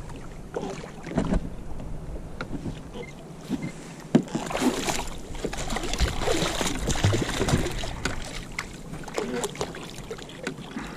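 Water splashing as a hooked smooth-hound shark thrashes at the surface beside a kayak, mixed with rustles and knocks of handling against the hull; a sharp knock about four seconds in.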